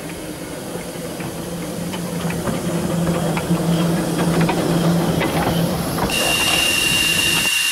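Andrew Barclay saddle-tank steam locomotive ('Lady Nan') running slowly past at close range, a steady low drone with clicks and knocks from its wheels and motion, growing louder as it nears. A little after six seconds the sound changes abruptly to a steady steam hiss with a high, whistle-like tone.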